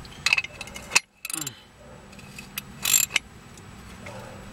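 Ratchet wrench clicking in three short bursts as it turns an inner tie rod tool, tightening a new inner tie rod onto the steering rack.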